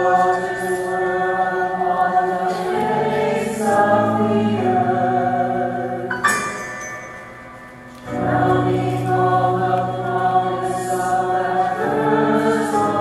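A mixed choir singing long held chords that shift every second or two, with a sudden bright accent just after six seconds. The sound then thins and dies away, and the full choir comes back in at about eight seconds.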